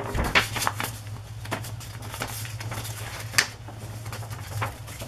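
Sheets of paper rustling and crackling as they are handled and shifted, in short irregular bursts, with one sharp click a little past the middle. A steady low hum runs underneath.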